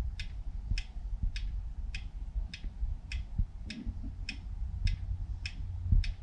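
Pendulum clock ticking evenly, a little under two ticks a second, over a low steady rumble.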